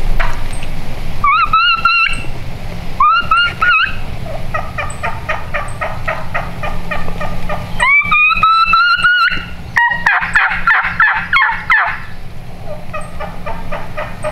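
Wild turkey hen calling to gather her poults. Drawn-out calls rise in pitch and then hold, three times, between runs of quick short notes, with a dense burst of chatter about ten seconds in.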